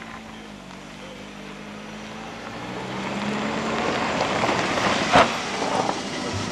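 Colt Starion sports car's engine running as it drives slowly up the lane, getting louder as it approaches, with tyre noise on the road surface. A single sharp knock about five seconds in.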